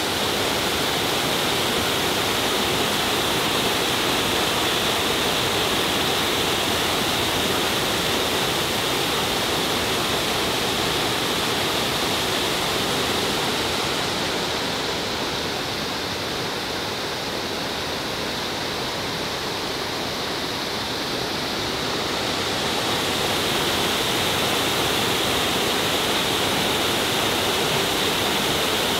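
A garden waterfall gives a steady rush of falling water. For several seconds in the middle its hiss dulls and softens a little, then comes back.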